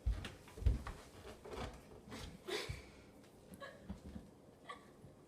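Scattered knocks, thumps and rustling of someone moving and handling things while searching for the microwave's plug, with one louder low thump under a second in.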